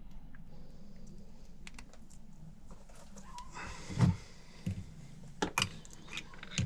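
Scattered light clicks and knocks of tools and parts being handled during HVAC repair work, with one louder knock about four seconds in, over a steady low hum.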